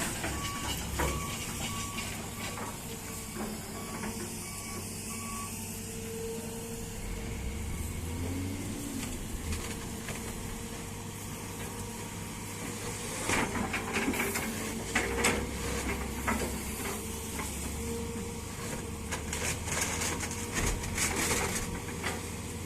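Hitachi excavator at work: its diesel engine runs steadily under a hydraulic whine, with a repeated warning beep about once a second in the first few seconds. Bursts of rattling and knocking come twice in the second half as the machine works the load.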